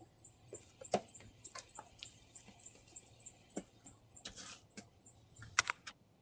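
Faint, scattered clicks and light ticks picked up by a doorbell camera's microphone, with a couple of brief hissy rustles later on.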